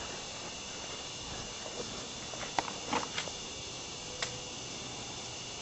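Quiet outdoor field ambience with a steady high insect drone, broken by a few light handling clicks about halfway through.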